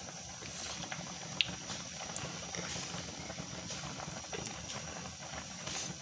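Pot of rice in water at a rolling boil, a steady bubbling with small pops, the rice nearly done. A single sharp click sounds about a second and a half in.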